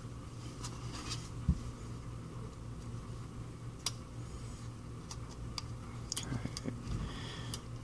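Sparse light ticks and clicks of small phone parts and tools being handled, with one duller knock about a second and a half in, over a steady low hum.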